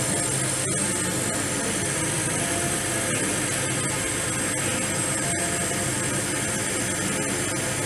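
A 50W Chinese laser cutter running, giving a steady mechanical whir with a thin high whine on top.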